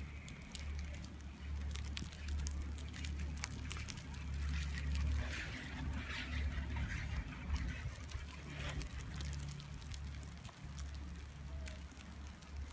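Ride on a moving chairlift: a low rumble of wind on the phone microphone with scattered light clicks, and for a few seconds around the middle a louder whirring rattle as the chair passes under a lift tower, where the haul rope runs over the tower's sheave wheels.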